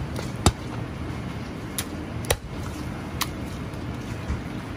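Chinese cleaver cutting raw chicken thigh and knocking on a plastic cutting board: four sharp, irregularly spaced strikes over a steady background hum.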